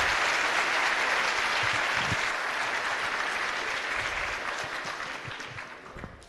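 Large audience applauding in an auditorium, the clapping fading away over the last few seconds.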